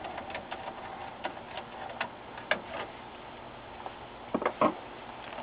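Screwdriver turning a screw out of a TV's metal chassis and power supply board: faint scattered ticks and clicks, then two louder knocks about four and a half seconds in as the board is handled.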